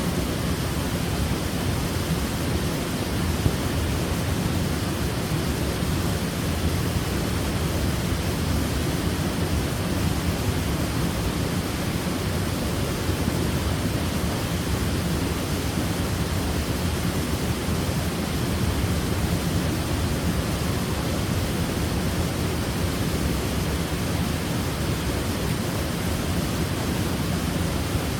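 Waterfall: a steady, even rush of falling water, heaviest in the low end, with no change.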